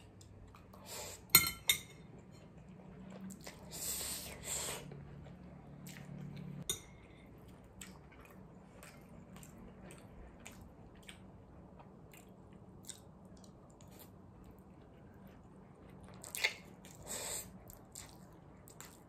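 Close-up eating sounds of spicy cold noodles with pork belly: metal chopsticks clicking against a ceramic bowl, with slurping and chewing. A sharp clink about a second in is the loudest sound, and longer slurps come around four seconds in and again near the end.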